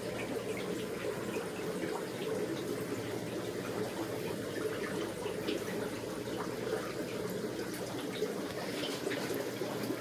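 Steady running and trickling of aquarium water from the tank filtration, over a faint low hum.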